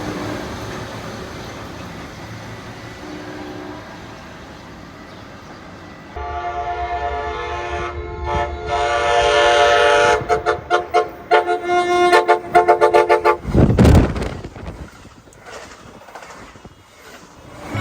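Amtrak Pacific Surfliner train's horn: after the rumble of the train dies down, a long chord blast starts about six seconds in, then breaks into a string of rapid short toots, a horn show played for railfans. A brief loud low rumble follows, and the sound fades near the end.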